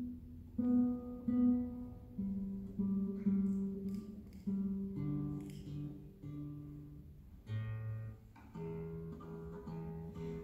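Nylon-string classical guitar played solo with the fingers: a melody of single plucked notes over bass notes, with a brief pause about eight seconds in.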